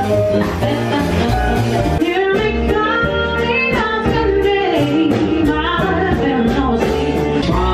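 Live jazz combo of piano and upright bass playing, with a singer carrying the melody.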